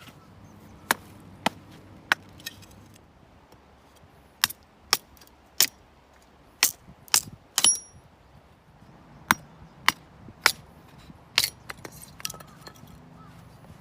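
A series of sharp clicks and knocks of hard objects being handled or struck, unevenly spaced, about a dozen and a half in all, some with a brief ringing edge.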